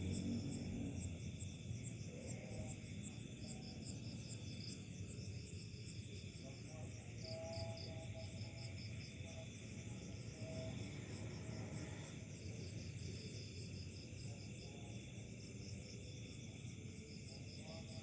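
Night insects, crickets, chirping in continuous fast pulsed trains over a low, steady background hum.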